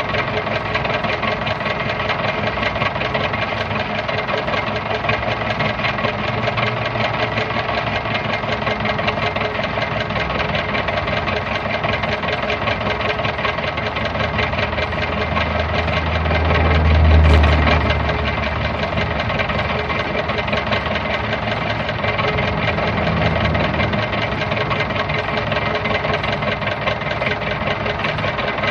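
1940s car engine running steadily at idle. About halfway through its note swells briefly, then settles back, with a smaller swell a few seconds later.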